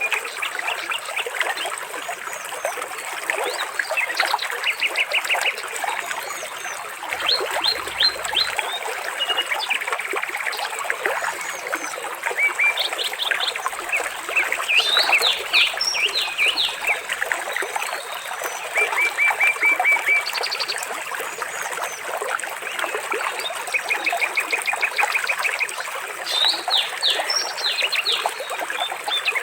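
Water trickling steadily, with birds chirping and trilling over it in quick runs of repeated notes.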